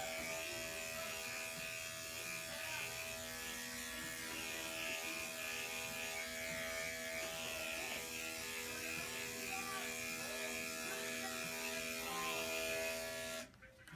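Electric dog-grooming clippers fitted with a guide comb running with a steady hum as they shear a small dog's leg coat, switched off about thirteen and a half seconds in.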